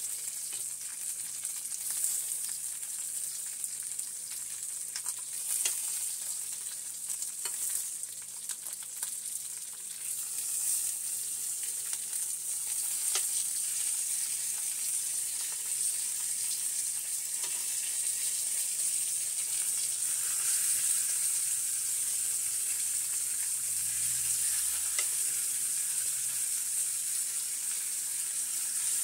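Oxtail pieces searing on a hot cast-iron griddle: a steady, high-pitched sizzle of fat and juices. Scattered sharp taps and clicks come through the sizzle in the first ten seconds or so as the pieces are moved about.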